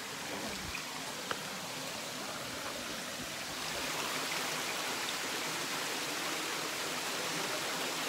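A small, low-running stream rushing over rocks, steady and a little louder from about halfway through; the water is low in the dry season. A single small click sounds just over a second in.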